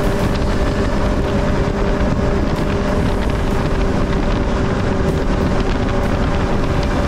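Mercury Racing 300 outboard on a speedboat running at a steady cruising speed, its engine note unchanging, under a heavy rush of wind on the microphone and water past the hull.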